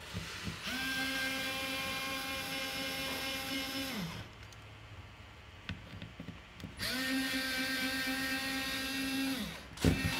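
Small cordless electric screwdriver running twice in a steady whine, about three seconds each time, backing out two screws from a gas detector's plastic case; each run winds down with a falling pitch as the motor stops. A sharp click comes near the end.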